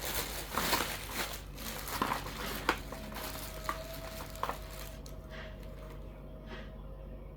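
Packaging crinkling and rustling as it is handled, with a few light clicks and taps; it dies down after about three seconds to only the odd click.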